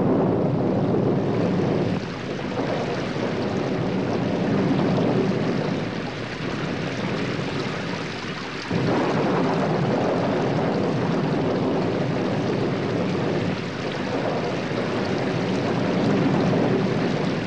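Thunderstorm sound effect: rain falling under long rolling thunder rumbles that swell and fade, with a fresh rumble breaking in suddenly about nine seconds in.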